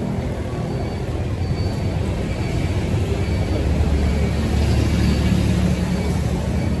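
Road vehicle noise: engines running steadily, with most of the sound low in pitch.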